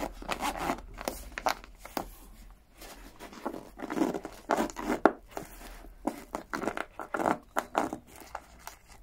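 Zipper of a fabric-covered storage case being worked open in short, irregular tugs and rasps, sticking where the lining fabric has caught in it, with the fabric rubbing and rustling.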